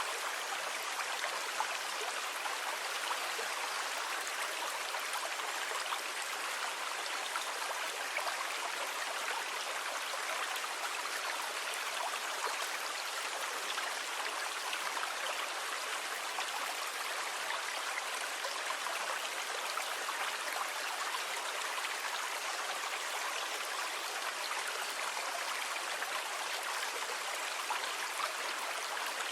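Steady hiss of flowing water, even throughout with no separate wave surges or splashes.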